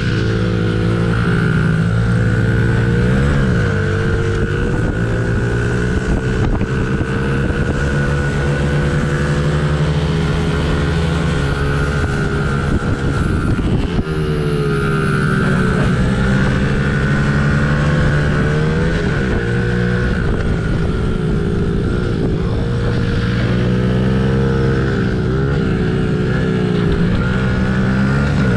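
50cc mini-motorcycle engine running hard at racing pace, its revs rising and falling through the corners. The pitch dips briefly several times, one about halfway through, as the throttle is eased.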